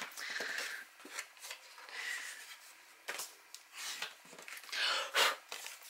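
White cardstock being folded and creased along its score lines with a bone folder: soft rustling and scraping strokes of paper, the loudest near the end.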